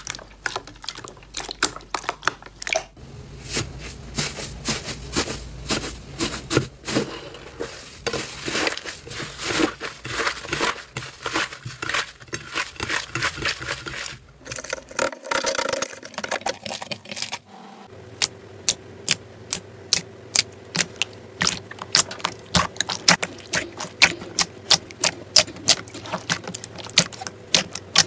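Hands playing with slime: a dense run of crunchy crackling as crumbly green slime is squeezed and kneaded, then a string of sharp clicking pops, two to three a second, as fingers press into thick glossy slime.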